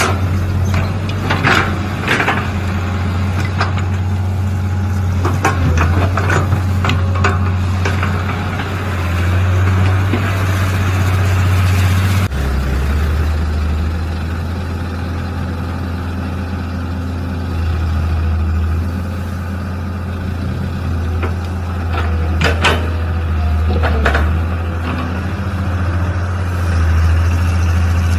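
Mini excavator engine running steadily, its low note dropping a little about twelve seconds in, with scattered clanks and scrapes over it.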